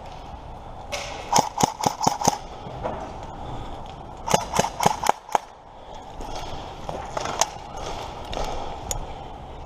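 Airsoft guns firing: two quick strings of sharp shots a couple of seconds apart, then a couple of single shots near the end.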